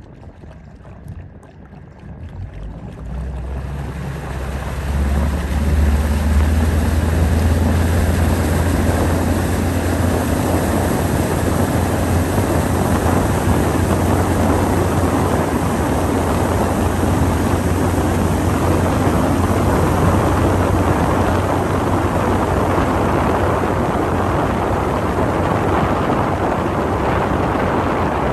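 Motorboat engine speeding up a few seconds in, then running steadily at speed with a low hum, over the rush of water and wind.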